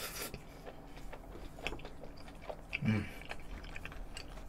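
Close-miked chewing of a mouthful of okonomiyaki: a run of small wet clicks and smacks from the mouth, with one short closed-mouth hum a little under three seconds in.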